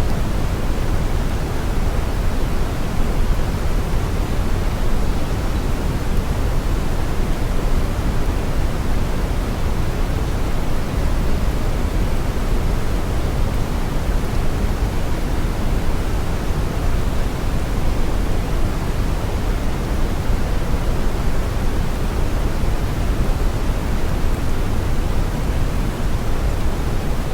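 Brown noise: a steady, even hiss that is heaviest in the deep low end and thins out toward the top, with no change in level.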